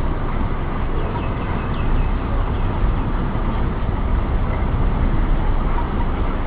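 Steady rumbling background noise, strongest in the low range, with a few faint short high chirps about a second in.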